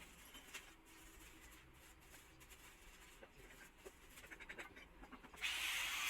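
Faint scattered clicks and taps, coming faster towards the end, then a loud steady hiss that starts suddenly about five seconds in.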